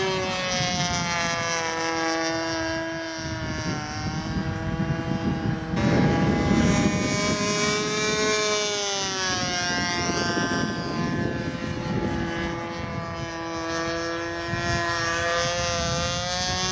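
Radio-controlled model Focke-Wulf Fw 190A flying, its propeller engine running steadily with the pitch slowly rising and falling as the plane turns and passes. There is a louder rushing burst about six seconds in.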